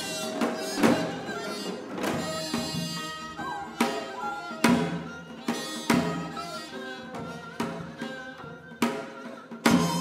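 Korean traditional music: sharp drum strokes roughly a second apart under sustained, wavering melodic lines from wind and bowed string instruments.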